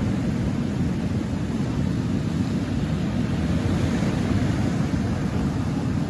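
Sea surf breaking and washing over a pebble beach: a continuous rushing roar, with a low rumble of wind buffeting the microphone.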